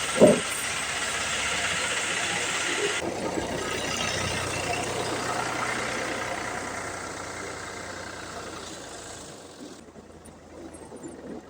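Ford 4600 tractor engine running steadily, then fading away over the last few seconds.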